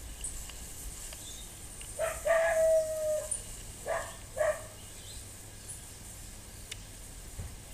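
An animal calls a few times: a short note, then a held note about a second long, then two short calls about half a second apart.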